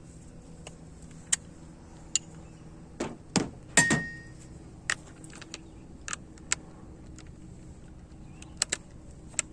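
Scattered metallic clinks and clanks of hand tools being handled and set down, about a dozen short knocks, one of them ringing briefly near the middle.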